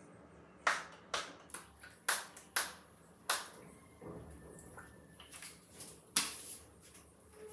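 Small pump spray bottle spritzing in short hissing bursts, about ten in an uneven series.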